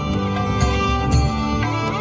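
Music with held melody tones over a steady beat of about two beats a second.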